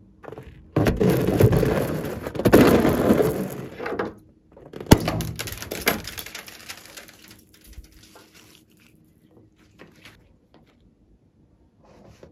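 The filling of a balloon squeezed out into a bowl of foamy slime base, a loud squirting, splattering rush lasting about three seconds. A sharp click follows, then a few smaller squelches and handling noises before it goes fairly quiet.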